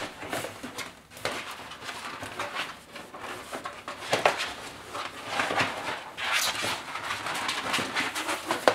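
Irregular rustling and crinkling of a light tent's white backdrop sheet and fabric walls as the backdrop is worked into the tent, with scattered small scrapes and taps.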